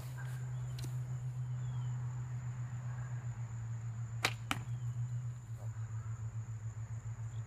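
A homemade primitive bow and arrow being nocked and drawn: two sharp clicks a little over four seconds in, over a steady low hum.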